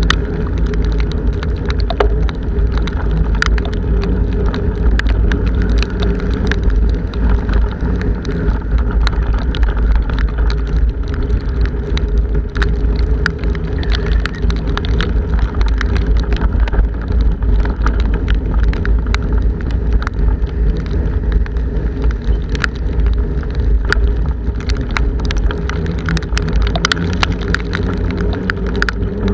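Strong wind buffeting a bicycle-mounted camera's microphone as the bike rides along a wet path, a heavy low rumble with a steady hum under it. Scattered sharp ticks of rain striking the camera throughout.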